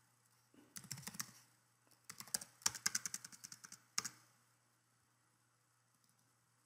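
Computer keyboard typing: a short burst of keystrokes about a second in, a longer run of keystrokes from about two seconds, and a last single keystroke at about four seconds, after which the typing stops.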